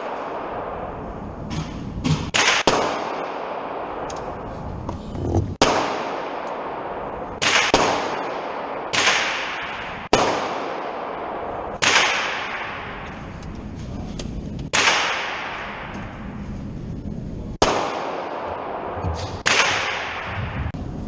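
A 5.56/.223 AR-15 rifle firing over a dozen single shots at an uneven pace, about one every second or two, each crack followed by a long echoing tail.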